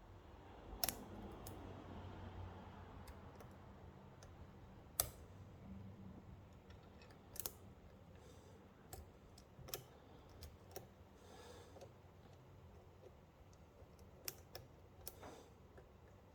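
Metal lock pick and tension tool working a pin-tumbler padlock core: faint irregular clicks of pins being lifted and set, with light scraping of the pick early on and one sharper click about five seconds in.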